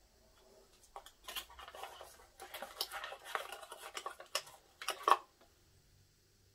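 A small cardboard watch box and its insert being handled as the charging cable is lifted out: rustling and scraping with light knocks and clicks for about four seconds, the loudest a sharp click about five seconds in.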